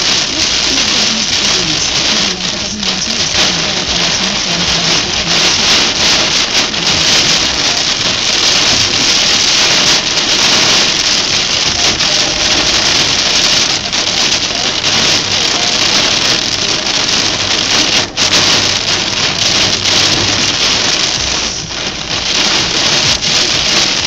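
Heavy rain pelting a car's windscreen and roof, heard from inside the car as a loud, steady, dense hiss.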